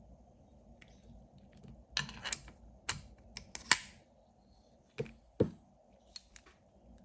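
Small metal parts of a hand rivet gun being handled and fitted: a cluster of irregular sharp clicks and taps about two seconds in, then two duller knocks about five seconds in.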